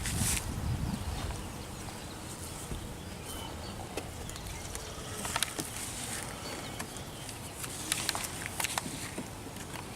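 Honeybees buzzing around an opened hive, with wind rumbling on the microphone and a few sharp clicks from wooden hive frames being handled in the second half.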